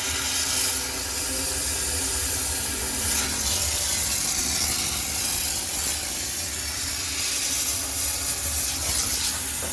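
High-pressure steam cleaner jetting steam in a steady hiss while sterilizing a washing machine, with the machine's low hum underneath.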